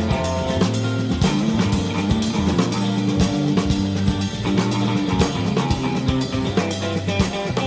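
Band music playing: guitar and bass guitar over a drum kit keeping a steady beat.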